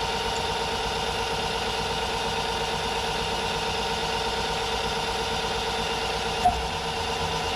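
Myford ML7 metal lathe running at a steady speed, its motor and drive giving a constant hum with a clear steady tone. There is a single small click about six and a half seconds in.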